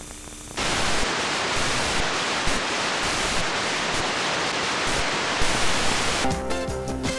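Steady static hiss from a blank stretch of videotape, cutting in abruptly about half a second in. Music starts near the end.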